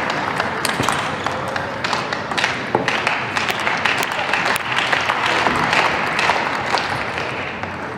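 Arena crowd applauding and talking after a table tennis point, a dense spread of scattered sharp claps over a steady hubbub.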